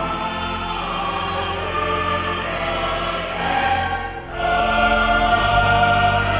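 A church choir singing held notes over sustained low accompaniment. It breaks off briefly about four seconds in, then comes back on a fuller chord.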